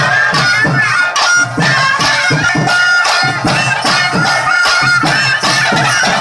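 Live traditional Indian folk music: a reedy wind instrument plays a wavering melody over a steady drum beat of about two to three strokes a second.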